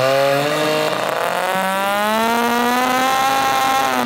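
Toyan 2.4 cc mini Wankel rotary model engine running at full throttle, a high, buzzing engine note whose pitch climbs over the first few seconds and then holds, reaching about 10,000 rpm.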